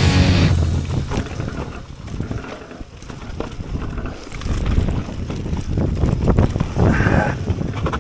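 Mountain bike rolling fast over dirt singletrack and roots, with tyre noise and an irregular clatter of the frame and chain rattling over bumps, picked up by a camera mounted on the bike.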